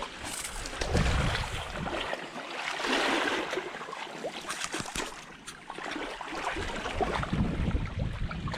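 River water splashing and sloshing, with small sharp ticks and knocks, swelling louder about one, three and seven and a half seconds in.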